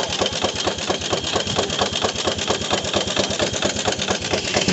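13 horsepower Gaar-Scott steam traction engine running a sawmill belt, beating out a rapid, even rhythm.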